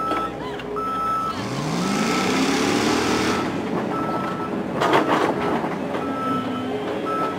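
A warning alarm beeping steadily, about one beep a second. An engine revs up about a second in, with a rushing hiss for a couple of seconds, and a short clatter of knocks near five seconds in.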